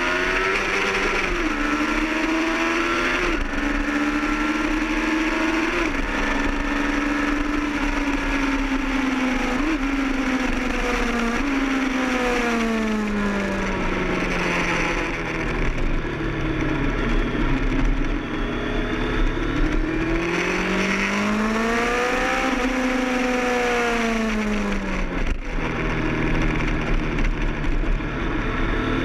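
Kawasaki ZX-10R's inline-four engine at track speed, heard from an onboard camera over a steady wind rush. The pitch holds high with a few brief gear-change steps, sweeps down around the middle as the bike slows, climbs and falls once more, then settles near the end.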